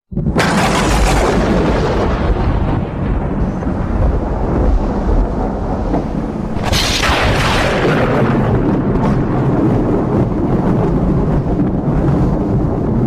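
Strong wind buffeting the microphone over a rough sea with high waves, a continuous loud rush. Two louder surges, one right at the start and one about seven seconds in.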